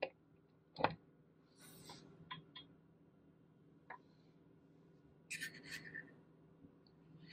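A USB plug pushed into the USB port of a plastic desktop power strip: a sharp click at the start and a louder click about a second in, followed by a few softer ticks as the cable is handled and a brief rustle a little after five seconds.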